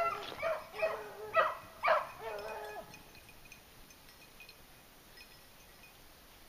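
Beagles baying on a cottontail rabbit's trail: several drawn-out, gliding calls in the first three seconds, then the voices drop away to faint.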